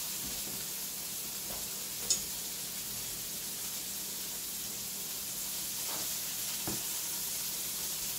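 Chicken searing in oil in a stainless-steel skillet, a steady sizzle, with one sharp click about two seconds in.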